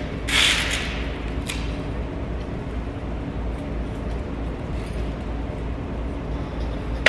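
Steady low hum, with a short rustling noise near the start and a single sharp click about a second and a half in, as the attachment at the low pulley of a gym cable machine is handled.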